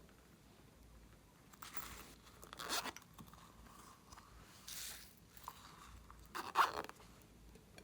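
Slime being worked by hand, giving four short, noisy squelching-crackling sounds a second or two apart, the last the loudest.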